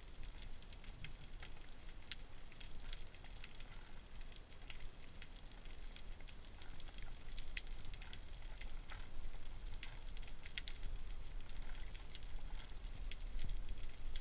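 Underwater ambience over a shallow seabed: a constant crackle of scattered sharp clicks over a low rumble of water.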